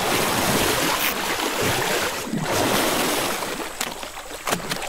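Heavy splashing and churning water as Nile crocodiles twist and spin in the shallows while tearing apart a wildebeest carcass. The splashing eases in the last second or so, with a few sharp slaps.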